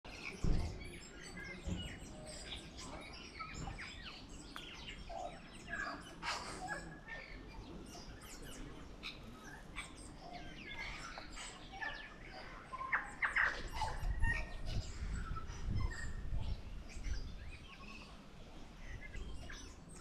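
Tui singing: a varied string of short clicks, whistles and chiming notes.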